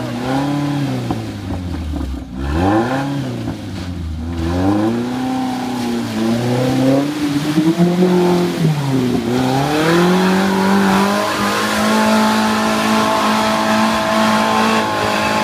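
Small off-road 4x4's engine revving up and down over and over while it drives through deep mud, then held at a steady high rev near the end.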